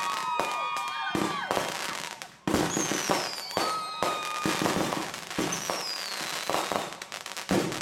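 Fireworks finale with rapid overlapping bangs and crackling. Whistling tones run through it, two of them falling in pitch, about three seconds in and again near six seconds. A brief lull just before the halfway point ends in a sharp bang.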